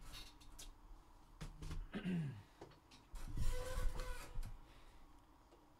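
Quiet handling noises at a desk: a few scattered clicks and taps, then a rustle lasting about a second a little past the middle.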